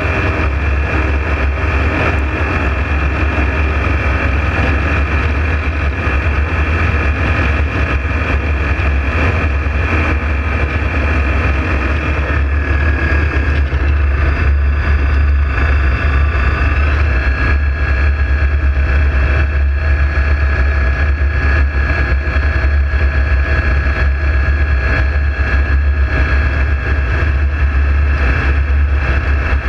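A steady engine or motor drone with a strong low hum and a whine on top. The whine shifts to a new pitch partway through, and the drone then carries on evenly.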